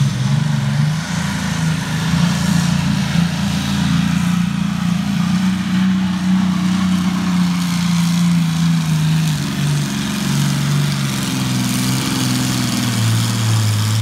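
12-cylinder pulling tractor engine running hard under full load as it drags the weight sled, a heavy steady note that drops in pitch near the end.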